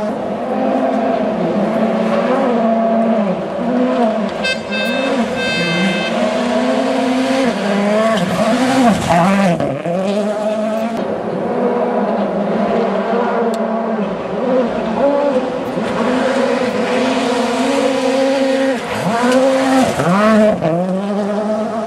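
A rally car's turbocharged engine revving hard without a break, its pitch dropping and swooping back up several times, most sharply about halfway through and again near the end.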